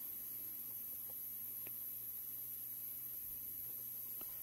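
Steady low electrical hum, with a few faint clicks as hands work at the sewing machine's bed.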